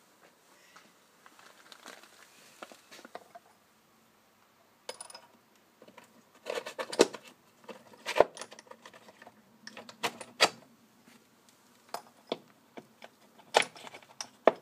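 Small metal engine parts being handled on a workbench: a faint rustle at first, then, about five seconds in, a run of sharp metallic clicks and clinks as parts knock together and are set down.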